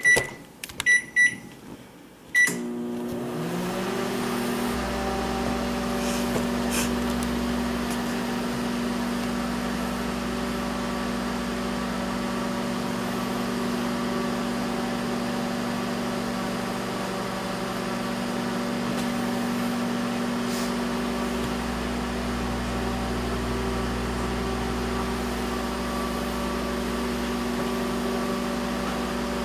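Microwave oven keypad giving several short beeps as the cooking time is entered. Then, about two and a half seconds in, the oven starts and runs with a steady hum.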